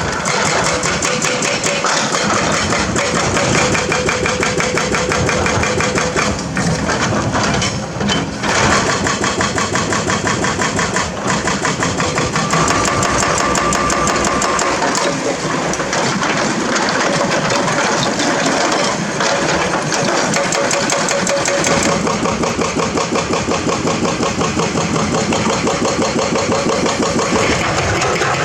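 Kobelco SK200 hydraulic excavator's diesel engine running steadily with a rapid, even pulse. A higher steady tone joins for a few seconds around the middle.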